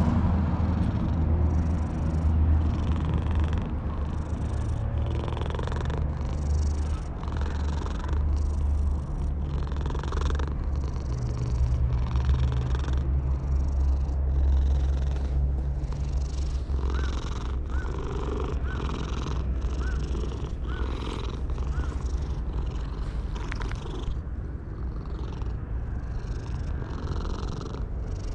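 Orange-and-white stray cat purring loudly at close range while being stroked on the head and chin: a continuous low rumble that swells and dips with each breath, a little more than once a second. Around the middle, several breaths carry a short chirp-like call.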